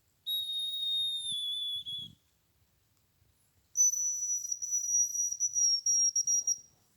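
Two long, thin, high whistles imitating a hazel grouse. The first is slightly falling and about two seconds long; the second is higher, lasts about three seconds and turns fluttery near the end.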